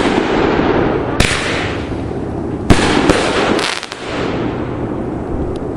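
Consumer fireworks going off: a dense crackling, with sharp bangs about a second in and three more close together near the middle, the loudest of them around the three-second mark.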